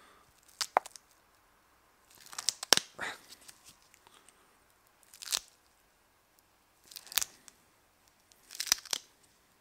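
Gloved fingers handling a sticky tyre-repair string plug while threading it into the eye of the insertion tool: short crackling, tearing rustles as the tacky plug and the gloves pull apart, in about five scattered bursts.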